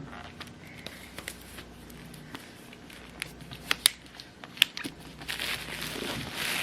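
Packaging of a new MacBook being opened: crinkling and tearing of paper and plastic wrap, with a few sharp clicks around the middle and denser rustling near the end.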